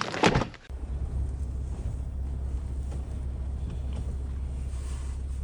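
Steady low rumble of wind buffeting the microphone, starting abruptly about a second in after a brief voice.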